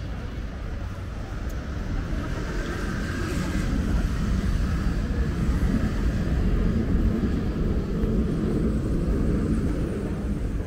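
City street ambience: a steady low rumble of traffic and street noise that grows louder through the middle.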